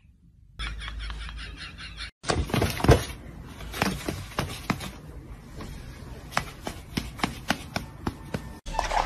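A cat's claws scratching and scuffing on a round cardboard scratcher: a run of irregular sharp clicks and crackles, loudest about three seconds in.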